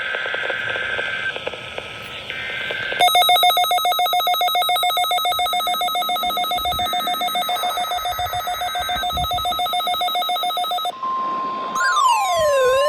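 Hiss with a thin steady tone, then about eight seconds of rapid, bell-like electric ringing. It stops abruptly and a steady high tone sounds, joined near the end by tones sweeping up and down like a siren.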